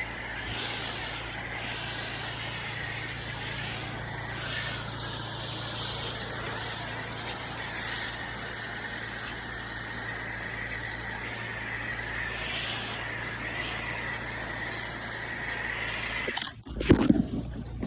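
Spray rig applying house-mix cleaning solution to concrete: a steady hiss of spray from the nozzle over a steady machine hum. About a second and a half before the end it cuts off sharply, followed by a brief low rumble.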